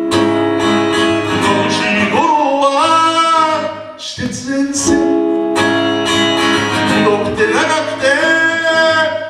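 A man singing a Japanese song with long held, sliding notes over a strummed Yamaha A3R steel-string acoustic guitar. Singing and strumming drop back briefly about four seconds in, then carry on.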